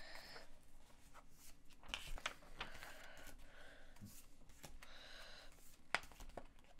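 Pokémon trading cards sliding and flicking against one another as a hand pages through a booster pack: soft rustling with a few short clicks, the loudest near the end.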